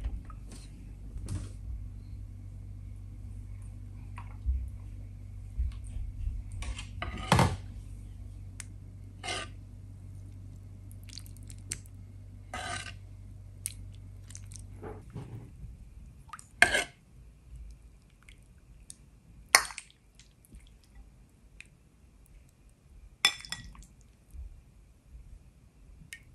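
Metal ladle and spoon clinking against a stainless steel soup pot while stirring and serving, a handful of separate knocks several seconds apart. A low steady hum runs underneath and stops about halfway through.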